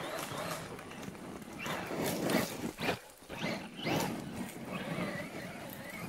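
Traxxas Maxx RC monster truck's brushless electric motor driven in throttle bursts: a whine that rises and falls in pitch, with bursts of noise from the truck moving over the ground.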